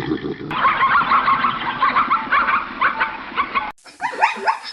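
Animal calls: a quick run of many short, high calls, broken off abruptly about three and a half seconds in, followed by a new series of short falling calls near the end.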